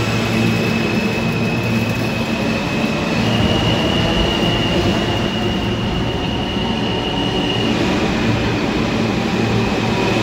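R160 subway train pulling out of the station and picking up speed, with steady wheel rumble and a low hum. Over them runs a high electric propulsion whine that steps up in pitch about three seconds in and drops back down a few seconds later.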